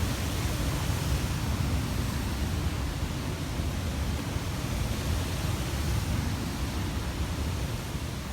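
Steady rushing roar of falling water at the Hogenakkal falls, heaviest in a low, fluttering rumble that suggests wind on the microphone too. No distinct events stand out.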